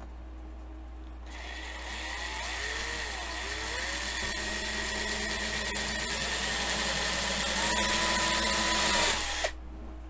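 Small power drill boring into the rivet post of a 1:64 diecast metal car casting. It starts about a second in and grows louder as its pitch wavers with the load, then stops suddenly near the end as the bit slips, breaking into a void in the post.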